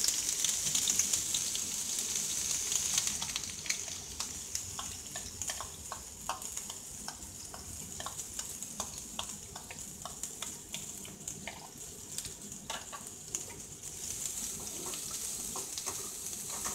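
Chopped onions sizzling as they hit hot oil in a kadai and are stirred with a spoon. The sizzle is loudest in the first few seconds, eases off, then builds again near the end. In the middle a dozen or so short clicks and scrapes of the spoon against the pan cut through it.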